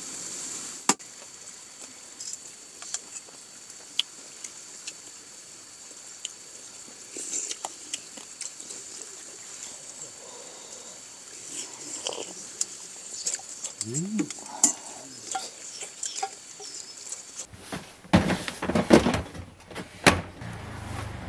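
Quiet eating sounds: chopsticks and spoons clicking against metal bowls, with a brief murmured voice. From about 17 seconds in come louder knocks and scrapes as plastic storage boxes are shoved and stacked into a car's cargo area.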